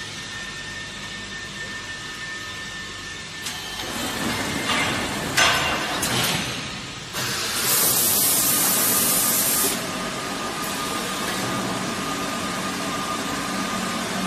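Automatic plastic vacuum forming machine running with a steady hum. From about four seconds in come several short hisses, then a loud hiss of about two and a half seconds near the middle. After it a steady high whine remains.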